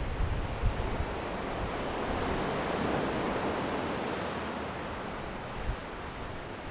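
Sea wave washing in on a rocky shore, a rush of surf that swells a couple of seconds in and then ebbs, with gusts of wind bumping the microphone.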